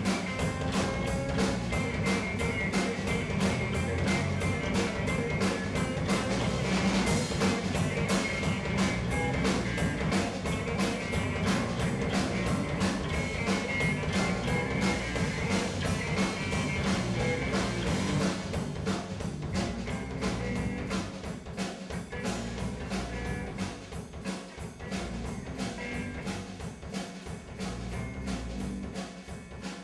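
Live rock band playing an instrumental passage: strummed acoustic guitar, electric bass guitar and a steady drum beat. The playing gets quieter about two-thirds of the way through.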